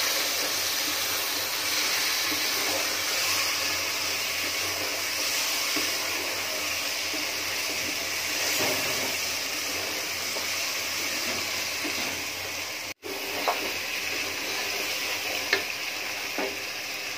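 Marinated beef sizzling in a pot in the juices it has released, with a spatula stirring and scraping it now and then. The sound drops out briefly about thirteen seconds in.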